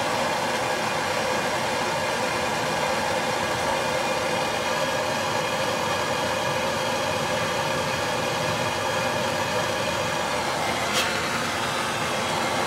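Hand-held propane blow torch burning with a steady hiss of the flame, and a single light click near the end.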